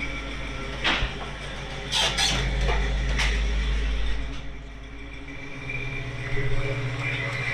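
A vehicle engine running with a steady low rumble, with sharp knocks about one, two and three seconds in. The rumble falls away about halfway through.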